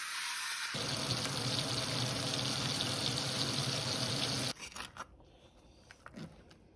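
Two ribeye steaks sizzling in hot oil in a frying pan, a steady hiss that starts about a second in and cuts off suddenly after about four seconds. After it come a few faint knife clicks on a cutting board as the cooked steak is sliced.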